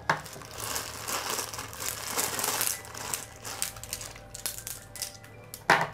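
A clear plastic bag crinkling as marbles are handled in it, with small clicks of marbles against each other and the plastic peg-solitaire board, one sharper click near the end.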